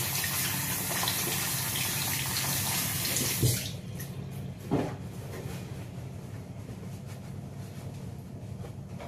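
Water tap running into a sink as hands are washed, turned off abruptly about three and a half seconds in. Two knocks follow, about a second apart.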